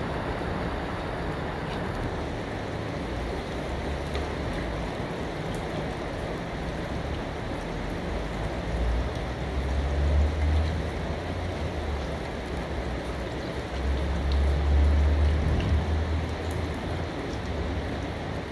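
Steady rain falling, an even hiss, with a low rumble underneath that swells twice, about nine and fourteen seconds in.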